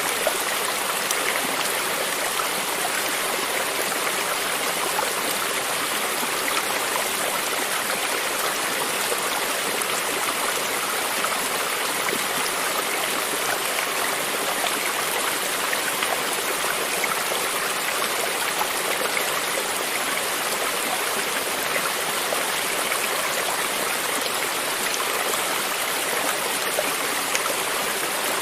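Water of a small stream running and babbling steadily over stones, an even rushing hiss with no pauses.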